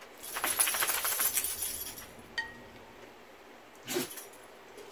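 A dense, rapid jingling rattle of small hard pieces clinking together for about a second and a half. It is followed by a single ringing clink, and a short dull knock near the end.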